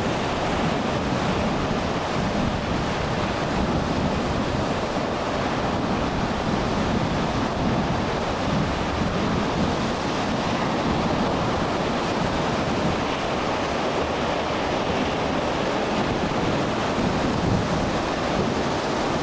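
Heavy storm surf breaking over and around a small fishing boat: a steady rush of churning, crashing water that keeps up without a pause.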